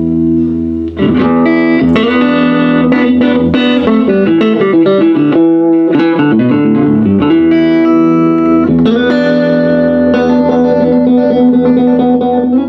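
Stratocaster-style electric guitar played through a 1956 Gibson GA6 tube amplifier: a held chord rings on, dips briefly about a second in, then picked single-note lines and chords follow.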